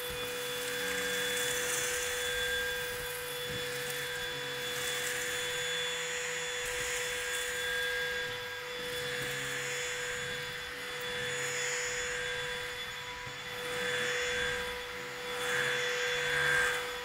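Cordless stick vacuum running steadily, a high motor whine over rushing airflow, as its floor head passes back and forth over pool-table felt sucking up a pile of fine granular mess.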